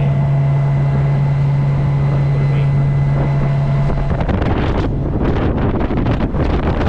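Boat motor running with a steady low hum under heavy wind buffeting on the microphone; the hum stops about four seconds in, leaving the wind noise, which comes in gusts.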